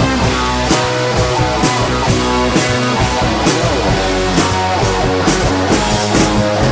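Rock band playing an instrumental passage: drum kit with cymbal hits about once a second, guitar, keyboard and keyboard bass.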